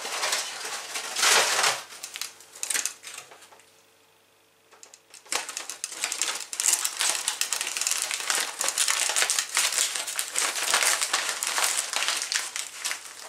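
Aluminium foil crinkling and crumpling as it is folded around pine cones. There is a loud stretch about a second in and a short lull after about four seconds, then steady crinkling to the end.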